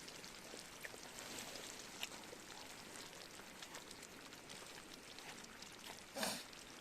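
Campfire crackling faintly, with scattered small pops and ticks over a soft hiss. About six seconds in there is one louder, brief noise.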